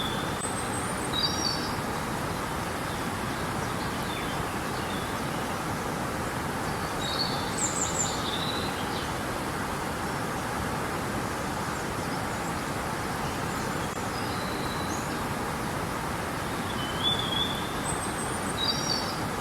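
Steady rushing of flowing river water, with short high bird chirps and calls breaking in several times.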